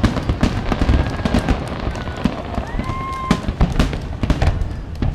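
Fireworks display barrage: many aerial shells bursting in quick succession, with dense booms and crackling and a continuous low rumble.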